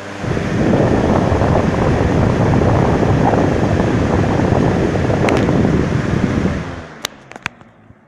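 Lasko 20-inch box fan running, its airflow buffeting the microphone held close to the grille as a loud, steady rush of wind noise. The rush drops off suddenly near the end, followed by three sharp clicks.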